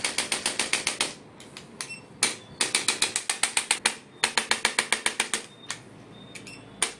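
Handheld chiropractic adjusting instrument firing rapid series of mechanical clicks, about ten a second, in several runs of roughly a second each with short pauses between them.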